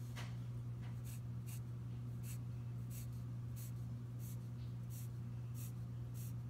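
Graphite pencil scratching short vertical strokes on paper, about one and a half strokes a second, as fence slats are drawn. A steady low hum runs beneath.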